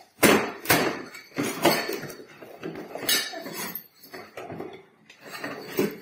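Cardboard box of a manual push sweeper being opened and its parts taken out: rustling packaging with a series of knocks and clinks, the loudest just after the start.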